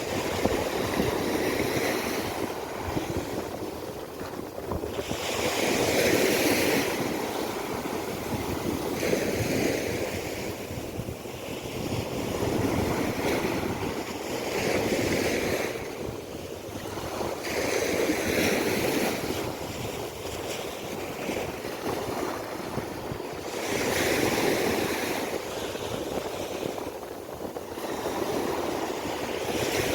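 Sea waves breaking and washing up on a sandy beach, the surf swelling and fading every few seconds, with some wind on the microphone.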